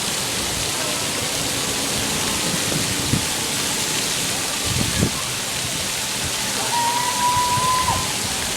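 Steady rushing noise. A single held, slightly rising high tone sounds for about a second, starting about seven seconds in.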